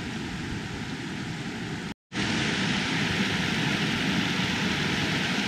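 Creek water rushing over rocks and a small rapid in a steady rush, with the creek running high after rain. The sound cuts out for an instant about two seconds in and comes back louder.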